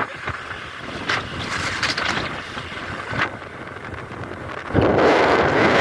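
Wind rushing over the microphone on a moving scooter, with the scooter's running and road noise underneath; the wind rush turns much louder near the end.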